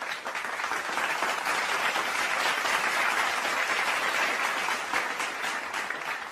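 Crowd applause: many hands clapping in a dense patter, building over the first second and fading toward the end.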